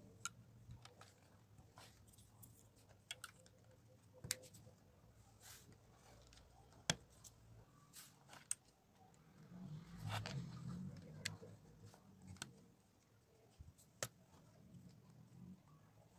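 Plastic LEGO bricks clicking and tapping as they are handled and pressed onto a model, a few scattered sharp clicks with a brief louder rustle of handling about ten seconds in.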